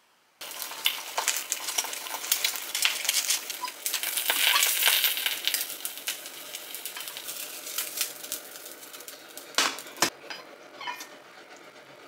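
Instant Chapagetti noodles in their sauce sizzling in a stainless steel saucepan on a gas burner while being stirred with chopsticks, with many sharp clicks of chopsticks against the pot. There is a louder knock near the end.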